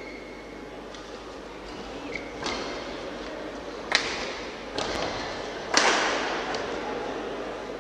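Badminton rackets striking a shuttlecock during a rally: about four sharp hits roughly a second apart, each echoing in a large hall, the last the loudest.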